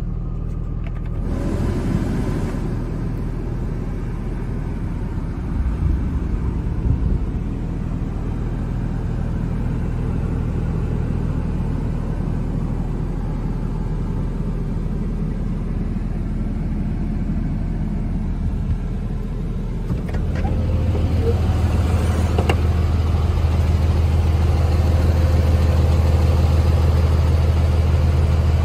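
Ram 3500's 5.9-litre Cummins turbo-diesel inline-six idling steadily, heard from inside the cab. The low drone grows louder about two-thirds of the way in.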